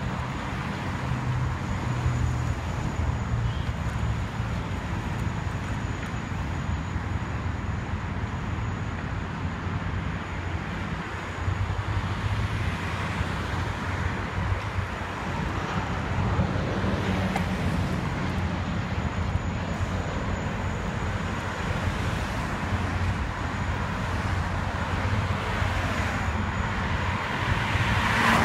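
Steady road traffic noise from cars on a multi-lane road, a constant low rumble with no single event standing out.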